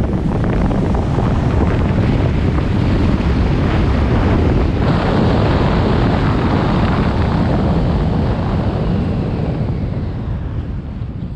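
Wind rushing over the camera microphone of a parachutist descending under an open canopy: a loud, steady buffeting that eases off over the last couple of seconds as the parachutist comes down close to the ground.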